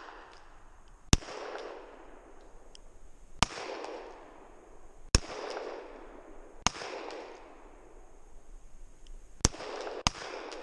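Six handgun shots fired in an irregular series, the last two close together. Each shot is followed by an echo that trails off over about a second.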